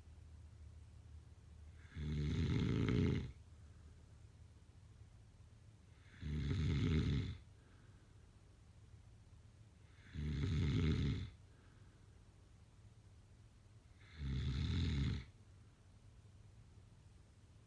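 Snoring in slow, regular breaths: four snores, each about a second long and about four seconds apart, with a low rattle.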